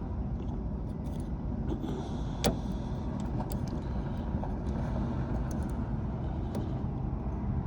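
Light metallic ticks and clicks of a lock pick working a Ford door lock, with one sharper click about two and a half seconds in, over a steady low rumble.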